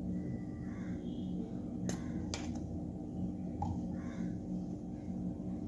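A metal spoon clicking against a cooking pot three times in quick succession about two seconds in, over a steady low hum.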